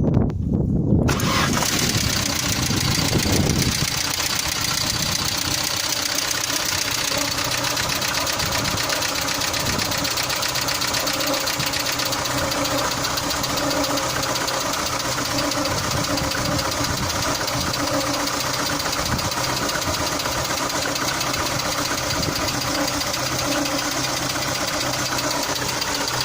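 Car engine just started, louder for about the first four seconds and then settling into a steady idle with a fast, even ticking: the tapping of hydraulic lifters (lash adjusters).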